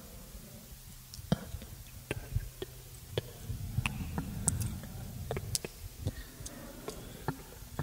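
Close-miked ASMR trigger sounds: irregular sharp clicks and ticks, a couple a second, over a low rumbling noise.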